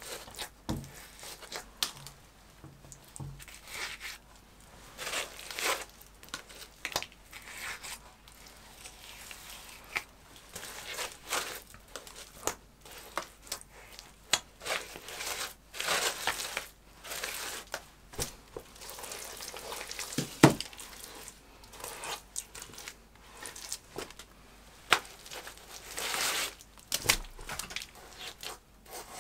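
Gloved hand pressing and rubbing wet clay plaster mixed with fibre onto an adobe wall: irregular swishing and scraping strokes, with a sharp click about twenty seconds in.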